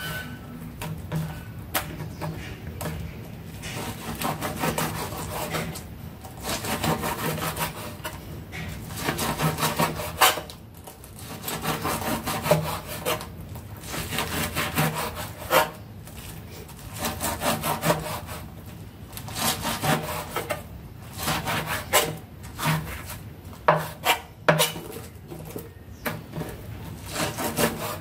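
A large kitchen knife saws back and forth through raw pig lung on a wooden cutting board, in runs of strokes with short pauses. Now and then there is a sharp knock as the blade hits the board.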